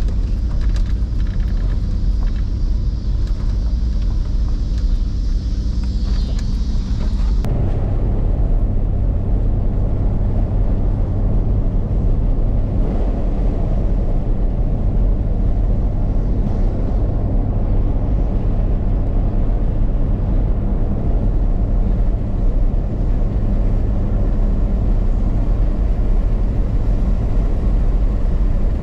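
Truck engine running, heard from inside the cab as a steady low rumble; about seven seconds in it changes abruptly to a fuller driving noise of engine and tyres on a paved road.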